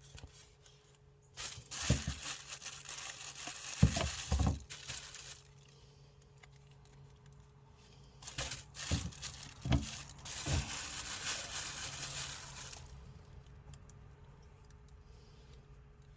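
Food-preparation handling noise from working a bagel with peanut butter: two stretches of scraping, crinkling noise a few seconds each, with a few dull knocks on the work surface.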